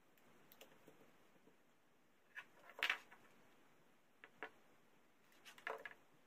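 Craft materials being handled and set down on a work surface: a few faint, scattered clicks and taps. The loudest is about three seconds in, with a small cluster near the end.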